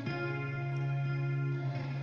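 Background music: sustained guitar chords with effects, a new chord about every two seconds.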